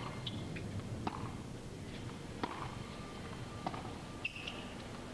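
Tennis rally: the ball struck back and forth by rackets, a sharp pop about every second and a quarter.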